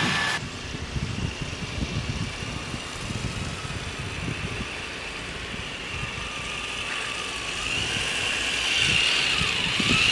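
Electric RC truck's Titan 12T 550 motor and Summit transmission running with a steady high whine, growing louder over the last few seconds as it drives through snow on tracks.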